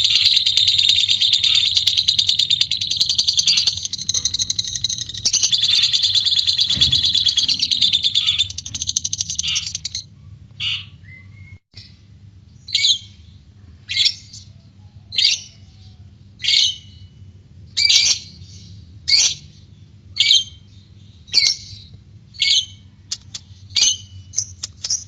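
Lovebird (white-beaked variety) doing its 'ngekek': a long, continuous, rapid high chattering trill for about ten seconds. It then breaks into single sharp chirps roughly once a second, which come closer together near the end.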